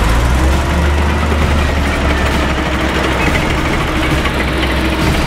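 M47 Patton tank's V12 engine running as the tank drives past on its tracks: a loud, steady low rumble.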